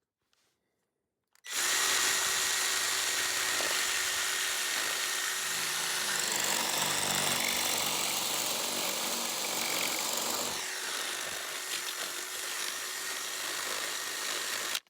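Electric drill running steadily as it bores out a hole to take a gate hinge pin, starting about a second and a half in and stopping just before the end.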